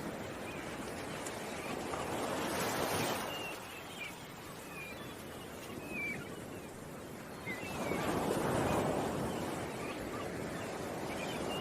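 Ocean waves washing in, swelling twice, with small birds chirping briefly now and then.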